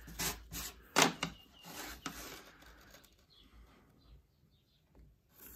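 Tools being handled on a plywood panel: a few sharp knocks and clicks as a steel rule is picked up and laid on the board, the loudest about a second in, then faint rubbing and small taps.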